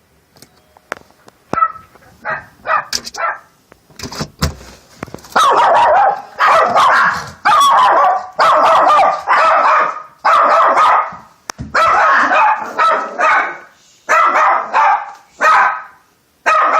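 A dog barking repeatedly: a few shorter barks, then a steady run of loud barks about one a second. This is the reactive barking at the door that doorbell desensitization training is meant to cure.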